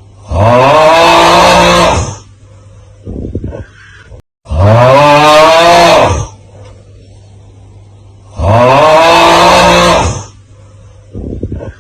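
The 'Aauuggh' meme sound looped: a loud, drawn-out 'aauuggh' yell from a voice, heard three times about four seconds apart, each lasting about two seconds and bending up in pitch before easing down, with a short rasping breath-like sound in the quieter gaps.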